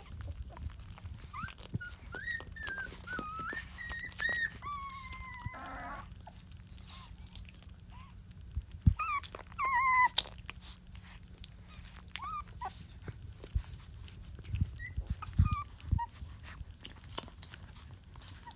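Twenty-day-old Rottweiler puppies squeaking and whimpering while nursing, in short, high, wavering cries that come in clusters, most in the first few seconds and again around nine to ten seconds in. A sharp thump comes about nine seconds in, with scattered soft clicks throughout.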